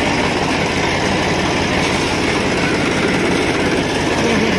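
Small tractor's diesel engine running steadily as the tractor is driven along, heard from the driver's seat.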